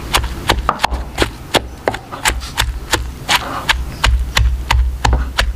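Pestle pounding garlic cloves and red chillies in a wooden mortar. It strikes steadily, about three times a second, each blow a sharp knock with a dull thud beneath.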